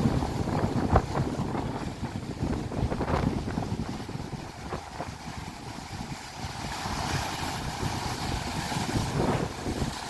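Sea waves breaking and washing over a rocky shore, the surf rising and falling in surges, with wind buffeting the microphone.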